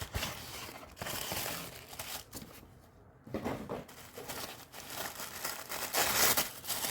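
Packaging crinkling and rustling in handling as a parcel is unwrapped and opened, with a short lull about three seconds in.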